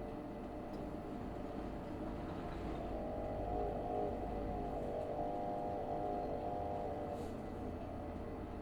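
Isuzu Erga city bus's 6HK1 inline-six diesel engine running as the bus drives, heard from inside the cabin: a steady low rumble with a pitched drone that strengthens from about three to seven seconds in, then settles.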